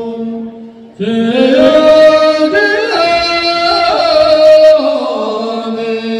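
Voices singing in long, held notes, breaking off for a moment about a second in and then coming back with several voices at different pitches.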